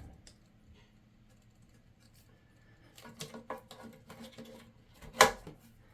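Small plastic hose fittings and clips being handled and pushed into place: a scatter of light clicks and taps in the second half, with one sharper click near the end.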